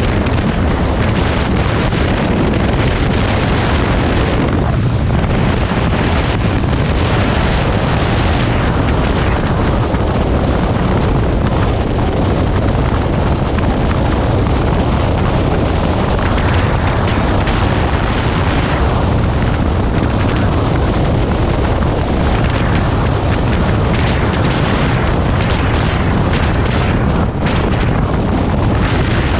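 Steady, loud wind rush and low rumble on the microphone of a camera mounted on a motorcycle riding at road speed.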